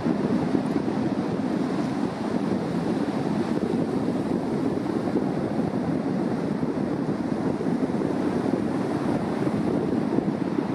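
Steady rush of surf breaking and washing up a sandy shore, with wind.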